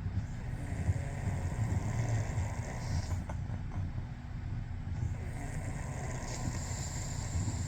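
A sleeping person snoring, a low rough rumble that swells and eases with the breaths.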